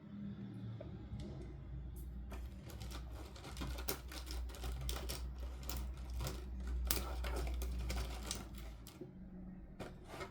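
Rapid, irregular small clicks and taps of plastic toy pieces and packaging being handled, thickening about two seconds in and thinning out near the end.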